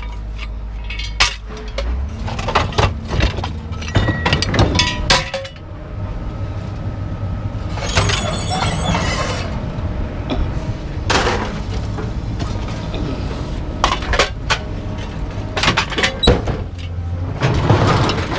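Scrap metal and junk being thrown off a truck onto a scrap pile: repeated clanks, crashes and clinks with ringing, over a steady low engine hum.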